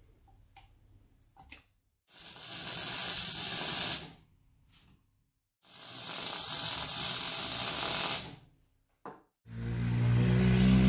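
Two bursts of MIG welding, each about two seconds of steady hiss, after a few faint clicks. Near the end a louder steady drone sets in: the wheelbarrow's 72cc GY6 four-stroke engine running.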